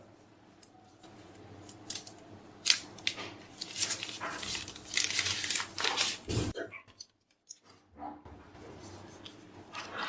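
Phone packaging being handled and unwrapped: plastic film and paper crinkling and tearing, with clicks and taps of the box. It is densest in the middle and cuts off abruptly about two thirds of the way through.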